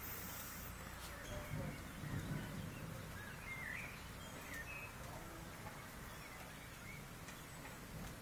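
Faint outdoor background noise with a brief low rumble about two seconds in, and a few short bird chirps near the middle.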